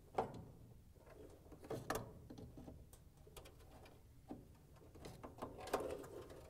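Needle-nose pliers squeezing the tabs of a plastic wire harness retainer clip while the wiring is handled: faint scattered clicks and rattles, about one every second, over a low rustle.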